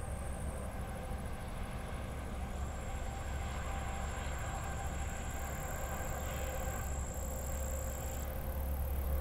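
Steady low background rumble, with faint steady high-pitched tones above it.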